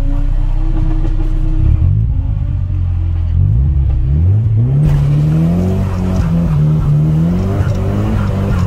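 Car engine idling, then revving up hard three times from about two seconds in and held at high revs, the pitch wavering up and down, as in a burnout.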